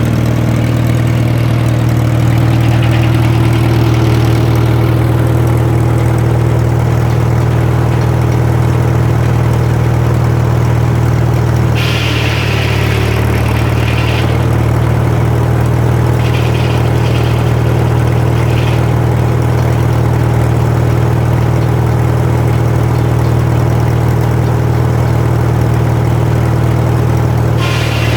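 Massey-Harris 25 tractor engine running steadily, driving a sawmill. About twelve seconds in, a higher hissing noise starts coming and going in patches over the engine, then stops near the end.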